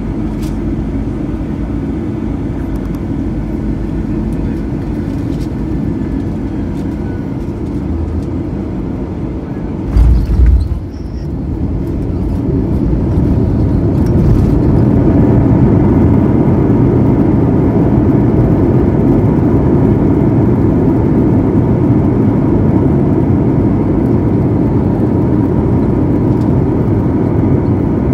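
Airbus A321 landing, heard inside the cabin over the wing: steady engine and airflow noise on final approach, then a heavy thump of the main wheels touching down about ten seconds in. Soon after, the noise swells and stays loud as the engines go into reverse thrust and the airliner rolls out on the runway.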